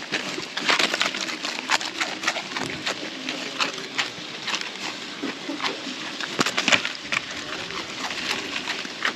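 Piglet chewing dry bread close up, a fast irregular run of crisp crunching crackles.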